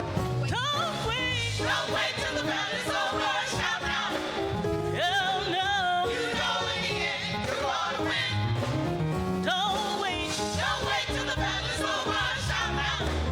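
Gospel praise-and-worship music: singing with wavering, sliding vocal runs over instrumental backing with a moving bass line.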